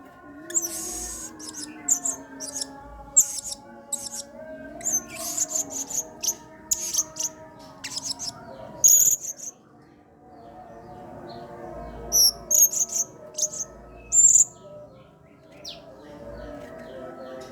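Blue-crowned hanging parrot (serindit) giving sharp, very high-pitched chirps in quick clusters, with a pause of about two seconds near the middle.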